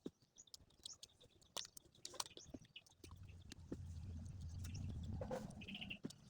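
Close-miked chewing of eggplant: scattered wet mouth clicks and small crunches, with a denser low rumbling from about three seconds in.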